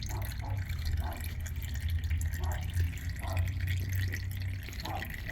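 Engine oil dripping and trickling into a drain pan in short separate drips, over a steady low hum.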